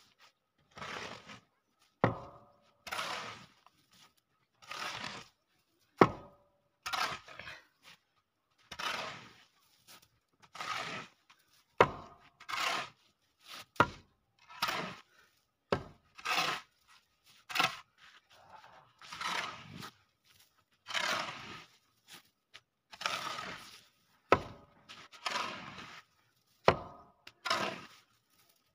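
Metal snow shovel scraping and pushing packed snow across a concrete roof slab, in repeated strokes about every two seconds. Now and then a stroke starts with a sharp knock of the blade, louder than the scraping.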